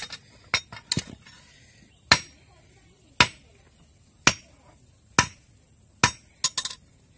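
Hand hammer striking the handle and ferrule end of a curved sickle blade to seat it, in sharp separate blows. A few come quickly early on, then about one a second, with a quick cluster of three near the end.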